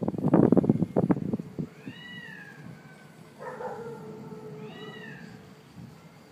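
Short animal cries that rise and fall in pitch, repeating about every three seconds, with a lower, longer cry between them; loud crackling noise in the first second and a half.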